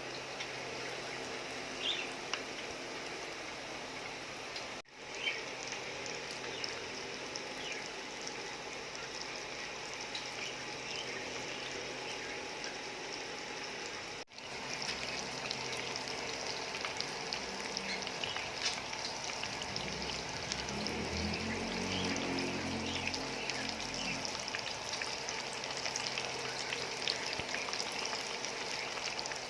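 Chicken pieces frying in hot oil: a steady sizzle with scattered small crackles. The sound drops out briefly twice, about five and fourteen seconds in, and is a little louder after the second break.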